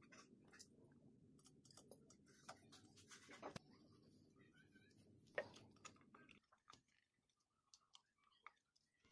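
Faint scattered clicks and light metal taps as a motorcycle cylinder barrel is eased down over the piston and its rings, with one sharper click about five seconds in. A low background hum stops about six and a half seconds in.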